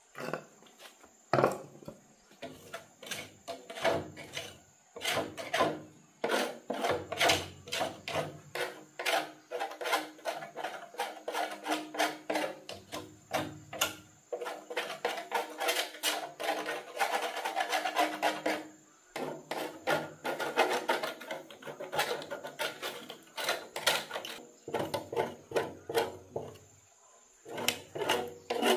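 A small metal tool scraping dried crust off the inside of an old banana chopper's sheet-metal drum, in quick rasping strokes several a second with short pauses.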